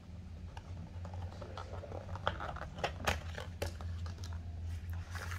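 Stiff plastic lid being lifted off a self-heating instant rice box: irregular clicks and crackles of the moulded plastic, busiest in the middle, over a steady low hum.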